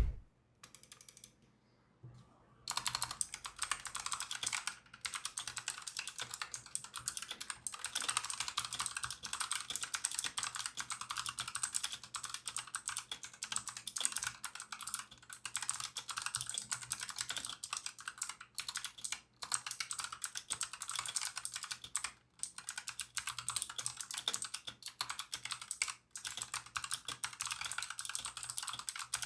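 Razer Huntsman Quartz keyboard with clicky optical switches being typed on: a few faint keystrokes, then fast steady typing from about three seconds in, broken by brief pauses.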